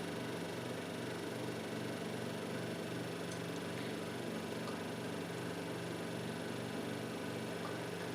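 Steady low whirring hum of a laptop's cooling fan, with a faint regular pulse in it.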